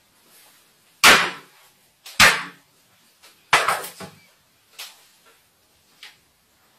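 Two hard claw-hammer blows on a smartphone in a protective case lying on a wooden desk, about a second apart, the blows cracking the phone's screen. Then a rattling knock as the hammer is set down on the desk, and a few light knocks as the phone is handled.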